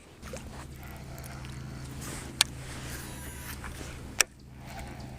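A steady low hum with two sharp clicks, about two and a half and four seconds in.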